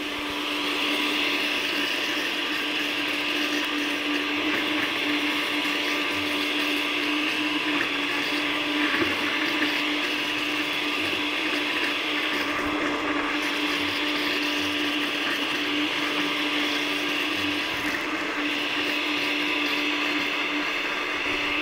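Countertop blender with a glass jar running steadily with a constant motor hum, blending a thick cheese-and-yellow-chili sauce while oil is added through the lid to emulsify it.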